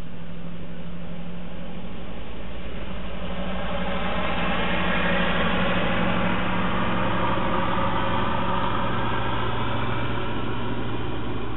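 Ferguson TEA 20 tractor's four-cylinder petrol engine running steadily as the tractor drives, getting somewhat louder partway through as it comes closer.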